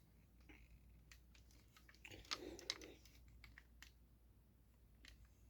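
Faint clicks and taps of a plastic action figure being handled, with a short cluster of louder clicks and rustling about two to three seconds in.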